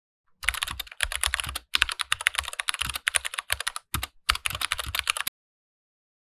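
Fast keyboard typing, with clicks in quick runs broken by short pauses, starting about half a second in and cutting off sharply about five seconds in.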